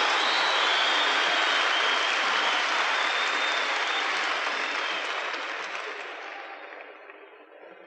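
Large audience applauding, the clapping dying away over the last two seconds or so.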